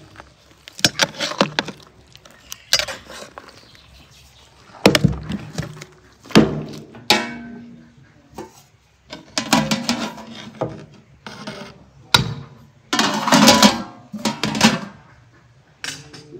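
Metal spoon knocking and scraping against a large aluminium cooking pot while strawberries are stirred: irregular clanks, some of them briefly ringing.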